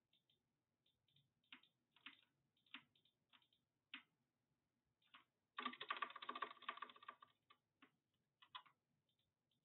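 Faint computer keyboard keystrokes. Scattered single key presses, then a rapid run of keystrokes lasting about two seconds in the middle, then a few more single presses.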